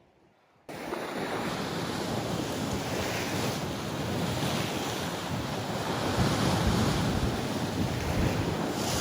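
Sea waves surging and washing, with wind buffeting the microphone; the sound starts suddenly under a second in, after a moment of silence.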